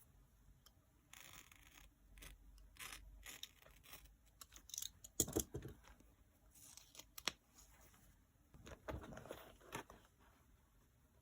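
Faint, irregular paper-craft handling of paper and stickers: short rustles, peels and light taps, with louder clusters about five seconds in and again near nine seconds.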